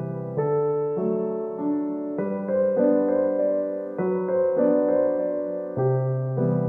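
Background piano music: a slow melody with notes changing about every half second over held low chords.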